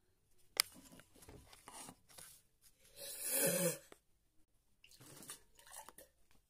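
A girl gagging and sputtering on a mouthful of dry cornstarch paste, then spitting it out into a cup in a loud wet splutter about three seconds in. A sharp click sounds about half a second in.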